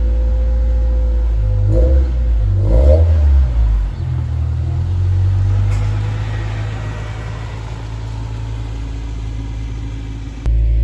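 A car being driven: a steady low engine and road rumble that swells around two to four seconds in, then settles.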